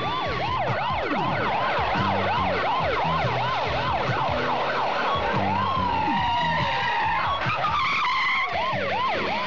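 Several police car sirens yelping at once, their rapid rise-and-fall cycles overlapping, with a slower wail sweeping down about six seconds in, over the rumble of car engines.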